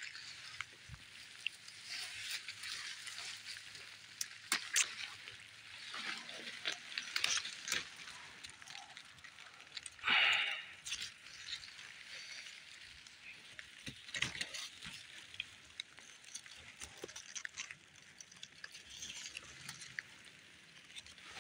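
Leaves and stems of berry bushes rustling and crackling as a hand pushes through them to pick berries, with scattered small clicks and one louder brush about ten seconds in.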